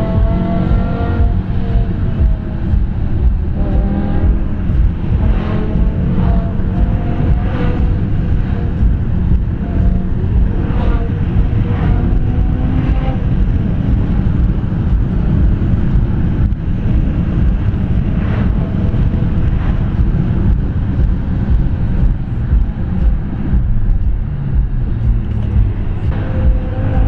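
BMW M5 E60's V10 engine, fitted with Dinan throttles, airbox and stage 2 ECU, heard from inside the cabin while driven hard in traffic. The engine note climbs and drops with the revs, rising at the start and falling away near the end.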